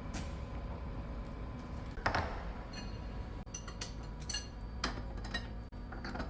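Several metal clinks and knocks of steel tooling being handled, the loudest about two seconds in, over a steady low machine hum.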